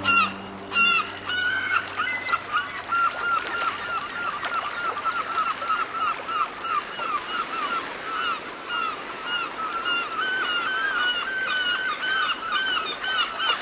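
Dense chorus of short, repeated animal calls, several a second, like a flock honking, with a few sharp clicks in the first second.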